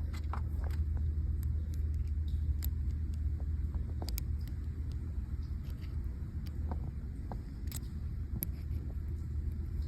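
Steady low rumble with scattered faint clicks and taps, as of small mount parts being handled.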